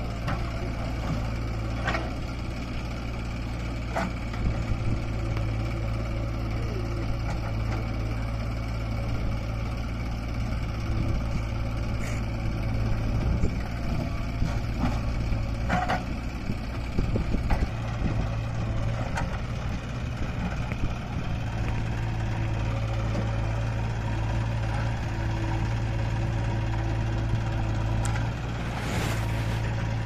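Diesel engines of a JCB 3DX backhoe loader and a John Deere tractor running steadily, the tractor idling while the backhoe works, with a low hum. There are a few short sharp knocks as the bucket dumps soil into the tractor's trolley.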